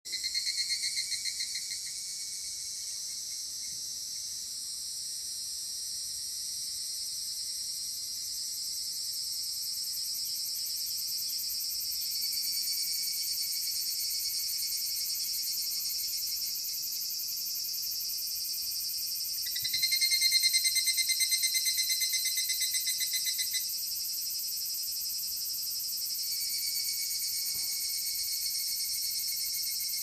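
Evening cicadas (higurashi, Tanna japonensis) calling in chorus: several insects' rapid pulsing trills overlap throughout, one louder and nearer for a few seconds about two-thirds of the way in.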